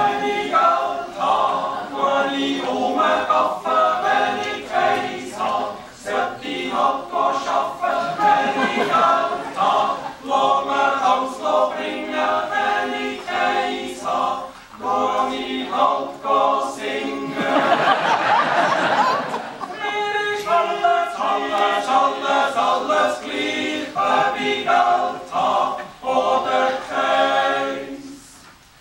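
Small male yodel choir singing a Swiss folk song a cappella, several voices in harmony, in phrases with short breaks between them.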